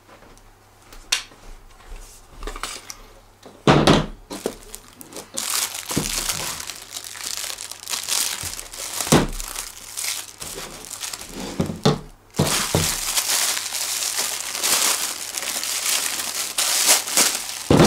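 Clear plastic wrap crinkling and rustling as it is slit with a sword blade and pulled off a hard-shell case, getting louder and more continuous about two thirds of the way in. A few sharp knocks come in the first half.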